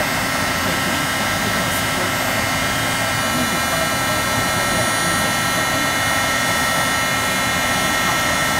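Embossing heat tool blowing steadily, a rush of hot air with a constant high whine from its fan motor, as it melts embossing powder on the canvas.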